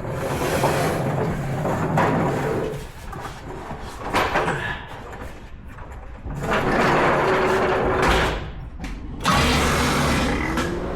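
Starter cranking the 454 big-block Chevy V8 in several short bursts of a second or two each. The starter is short of voltage, so it turns the engine over too slowly.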